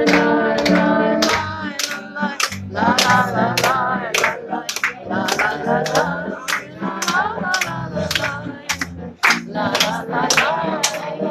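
A group of people clapping along in a steady rhythm, about three claps a second, while voices sing a song.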